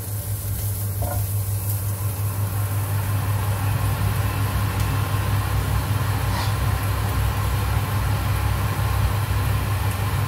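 Diced carrot and onion sizzling in hot oil in a nonstick wok over a gas flame, a steady hiss that slowly grows louder, over a continuous low hum.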